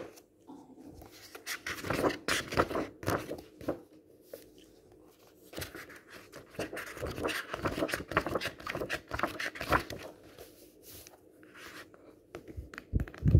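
Pages of a large book flipped quickly in runs, a rapid series of papery flicks and rustles close to the microphone, with short pauses between runs and a heavier thump near the end.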